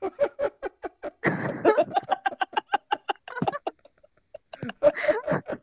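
People laughing over a video call: a long run of quick, repeated ha-ha pulses, then another burst of laughter near the end.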